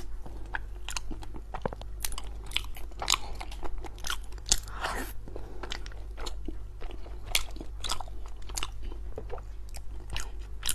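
Close-miked eating of a soft, cream-filled mochi cake: wet, sticky biting and chewing with many short irregular mouth clicks and smacks, over a low steady hum.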